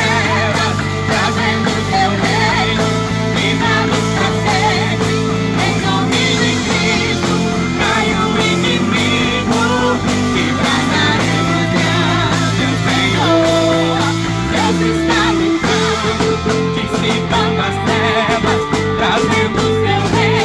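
Instrumental worship music with guitar and held chords, no sung words, with a low note sliding down about two-thirds of the way through.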